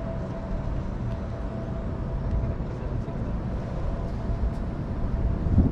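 Car running at low speed: a steady low engine rumble heard from inside the car, with a faint steady hum above it and a brief louder low thud near the end.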